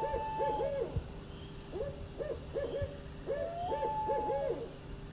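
Owls hooting: a run of short rising-and-falling hoots, twice joined by a longer drawn-out note, until the sound cuts off suddenly at the end.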